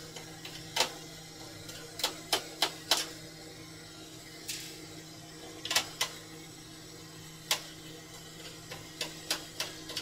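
Sharp, irregular clicks and taps, some in quick clusters of three or four, from a screwdriver and hands working at the side panel of a Yamaha power mixer while its screws are undone.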